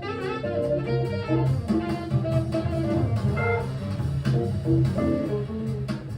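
A recorded small-combo jazz track playing, with a walking bass line under a melody and the drums played with brushes rather than sticks.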